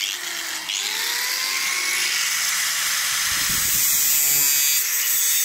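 Angle grinder with a thin cutting disc spinning up with a rising whine, then cutting a metal sliding-door roller bracket with a loud, steady, harsh hiss.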